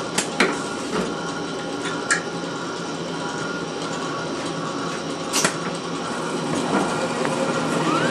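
Litton autolathe for glassblowing running a cycle: a steady mechanical hum with several held tones, broken by a few sharp clicks from its mechanisms.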